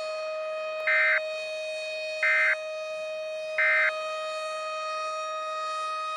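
Emergency Alert System end-of-message: three short bursts of screeching digital data tones, each about a third of a second long and spaced a little over a second apart. They play over a steady, unbroken electronic alarm tone.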